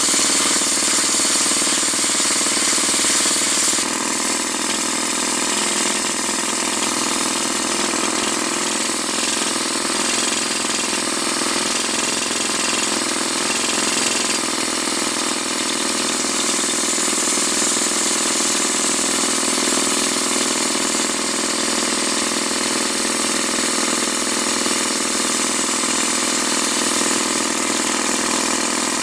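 Engine of the machine powering a TRD-350D earth-auger attachment drill, running steadily under load. Its sound drops a little about four seconds in and shifts again around fourteen seconds.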